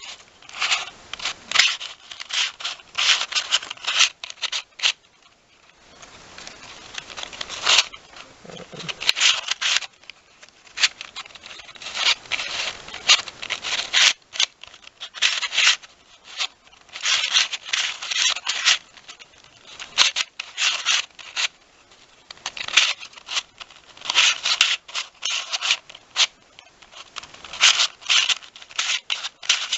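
A Square-1 speed cube being turned and sliced rapidly during a speedsolve: plastic pieces clicking and scraping against each other in quick flurries, with a few short pauses.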